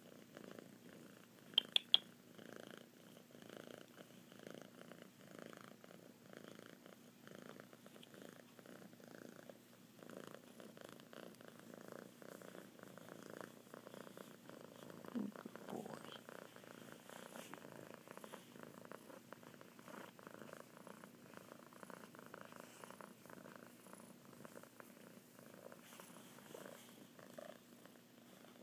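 A five-month-old kitten purring loudly and steadily, close to the microphone, with a couple of sharp clicks about two seconds in.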